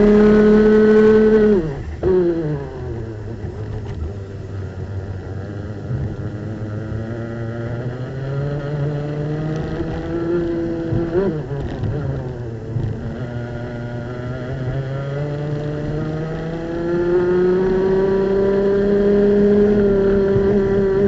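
Racing kart's two-stroke engine heard onboard at race pace. It runs high and steady, then drops sharply about two seconds in as the driver lifts off for a corner. It climbs back in stages and pulls up to full revs again in the last few seconds.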